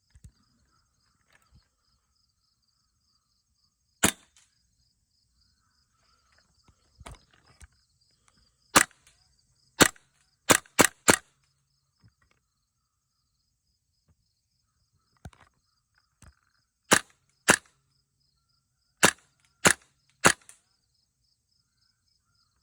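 Airsoft gas blowback rifle firing single shots, about a dozen sharp cracks at uneven spacing, some in quick runs of two or three about half a second apart.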